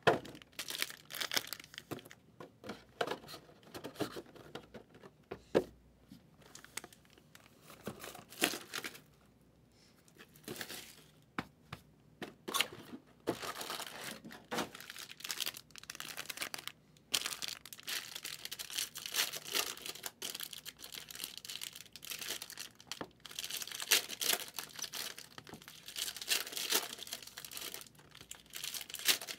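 Trading card pack wrappers being torn open and crinkled by hand, in irregular crackling bursts with a brief pause about nine seconds in.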